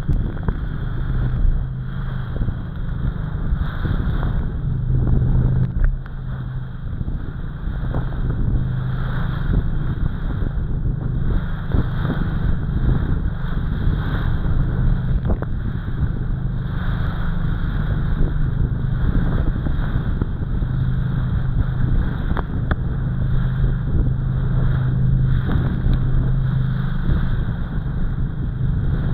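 Small motorboat under way at speed through choppy water: a steady engine drone, with spray hissing and the hull slapping into the waves in frequent irregular knocks.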